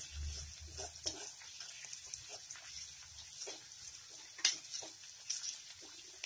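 Chopped ginger and green chillies frying in hot oil in a metal kadhai, sizzling steadily, while a spatula stirs them and scrapes and clicks against the pan, the sharpest scrape about four and a half seconds in.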